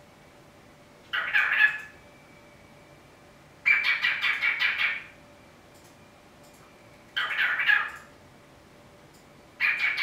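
Cockatiel chattering in four short bursts of calls with pauses between them. The second and fourth bursts are quick runs of repeated pulsed notes.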